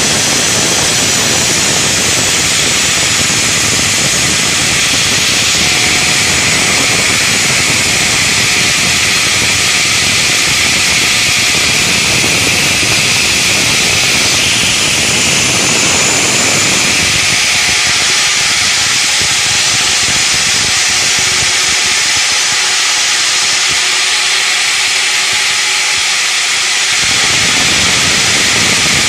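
Granite block-cutting saw machine running, a loud, steady noise with a strong hiss. The low rumble beneath it fades for several seconds in the latter half and comes back near the end.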